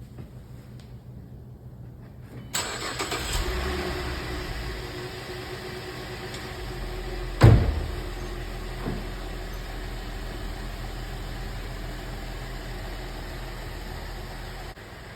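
A car engine is started a couple of seconds in and then runs steadily, with a single loud thump about halfway through.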